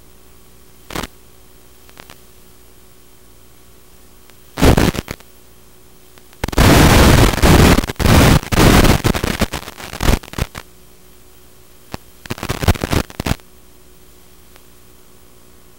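Steady static hiss from an analog FPV video receiver, breaking into loud crackling bursts of noise as the radio video signal drops out. There is a short burst about a second in, another just before five seconds, a long loud stretch from about six to ten seconds, and a last cluster around twelve to thirteen seconds.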